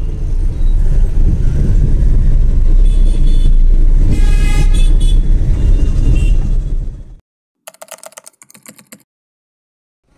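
Traffic heard from inside a moving car: a heavy low road-and-wind rumble, with other vehicles' horns honking about three seconds in and, loudest, a little over four seconds in. The sound cuts off abruptly about seven seconds in, followed by a brief rattle of clicks.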